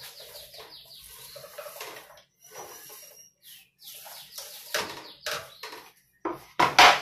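Chopped cabbage scraped and pushed off a wooden cutting board into a skillet, with a few sharp knocks near the end.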